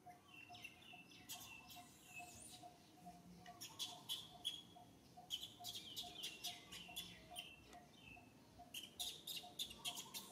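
Faint birdsong: short, sharp chirps in scattered clusters, over a steady low note repeated about three times a second.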